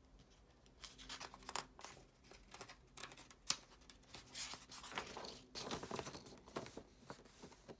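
Printed paper pages rustling and crinkling as hands lift a page, turn it and smooth it flat, with one sharp crackle about three and a half seconds in.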